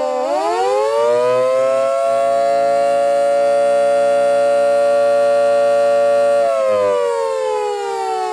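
Two Federal Signal Model 2 electromechanical civil-defense sirens sounding together, distorted by an overloaded camera microphone. Their pitch climbs steeply for about two seconds and holds steady for about four, then winds down near the end in a wail.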